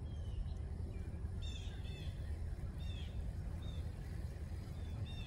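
Small birds calling: about six short, arching, high chirps spread over a few seconds, over a steady low rumble.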